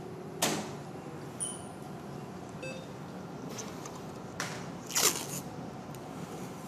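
Operating-room background: a steady hum with a couple of faint short electronic beeps, and a few brief rustling noises as the intubated patient's breathing tube and circuit are handled.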